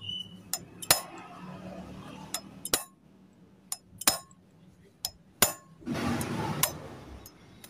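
Metal tools and steel steering-head parts clinking and tapping against each other: about ten sharp, irregular clinks, some with a short ring, with a brief rustling noise near the end.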